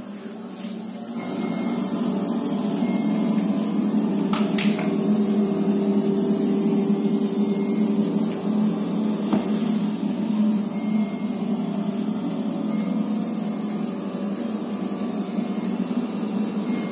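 Epson TW6100 projector running, its cooling fan a steady hum and rush, with a faint siren-like beeping that comes and goes. The beeping is the alarm the projector keeps sounding because the lamp is in a non-original housing.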